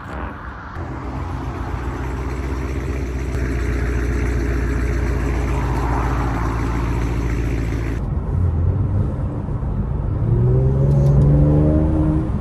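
A car engine running steadily, then rising in pitch as it accelerates about ten seconds in.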